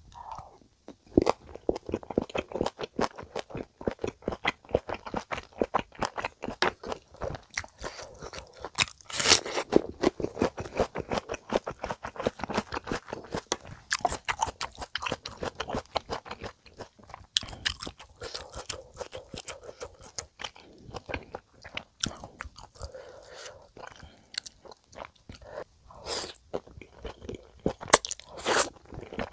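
Close-up chewing and mouth sounds of someone eating spicy stir-fried chicken dakgalbi with udon noodles. Many small, irregular wet clicks and chews, with a few louder bites or slurps.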